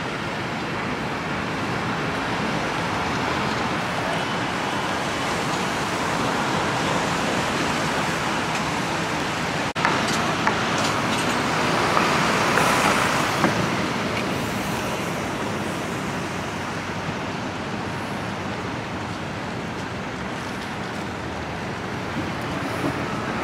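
Steady city road traffic: a continuous wash of passing vehicles, with a brief break about ten seconds in.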